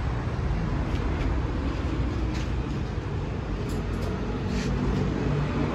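Steady road-traffic rumble with a few faint clicks.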